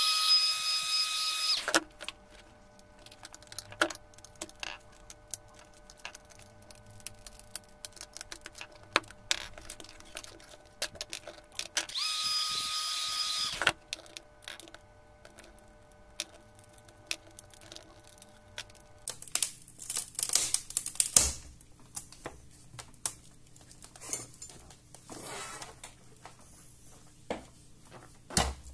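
A small handheld electric motor tool runs with a high whine in two short bursts of about two seconds each, one at the start and one about twelve seconds in. Between and after them come clicks, taps and knocks of a laptop display panel and its hinges being handled, busiest about twenty seconds in.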